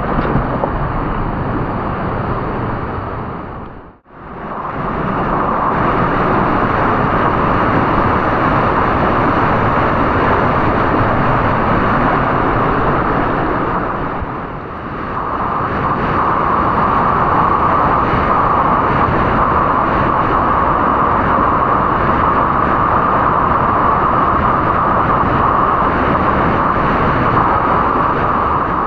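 Loud, steady rush of water. It drops out for an instant about four seconds in and dips briefly again around fifteen seconds.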